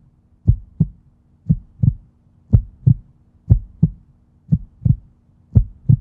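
Heartbeat sound effect: pairs of low thumps about once a second, over a faint steady low hum, building suspense.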